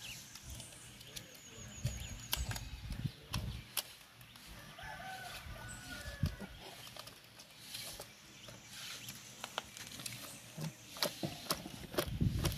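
Scattered clicks and knocks of a cooking pot and its contents being handled to get cooked shrimp out, with heavier thumps near the end. A short animal call sounds about halfway through.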